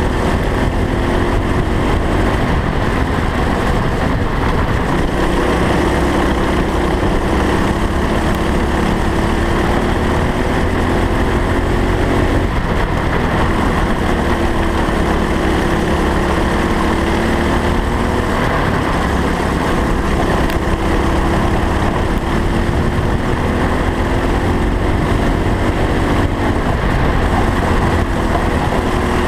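Go-kart engine running at racing speed, its pitch rising and falling again and again as the kart accelerates out of corners and eases off into them, over a steady low rumble of wind and vibration on the onboard camera.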